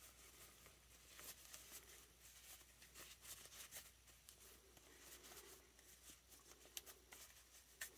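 Near silence, with faint scattered rustles and small clicks as a cloth jacket is worked onto a plastic action figure.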